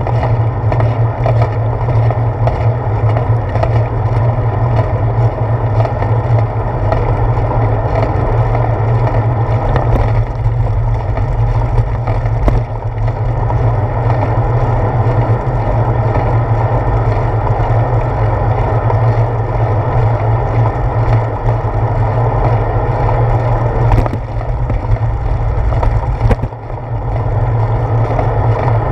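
Steady low wind rumble and road vibration picked up by a handlebar-mounted GoPro Hero 4 on a moving bicycle, with a few sharp knocks from bumps in the road.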